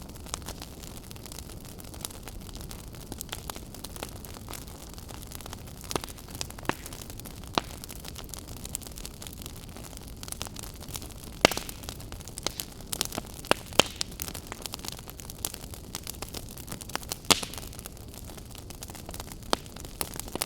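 Wood campfire crackling: a steady low hiss of burning with irregular sharp pops and snaps. The pops come in clusters, loudest about halfway through and again near the end.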